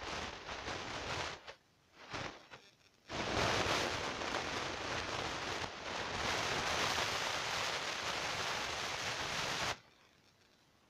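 Rustling hiss of a phone's microphone being rubbed and handled, coming in stretches, with a long continuous stretch that cuts off suddenly near the end.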